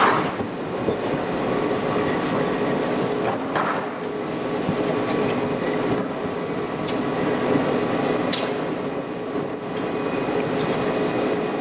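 Steady roar of the gas burner under a babbitt pot, with scraping and a few sharp clinks as a hot Model T starter nose housing is scrubbed with soldering salt to tin its bore.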